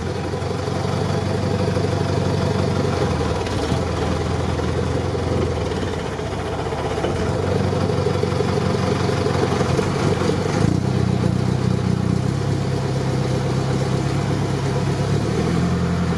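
Off-road truck's engine running at low speed under load as the truck crawls through a muddy, water-filled rut, with the tyres splashing through the water. The engine note changes about ten seconds in.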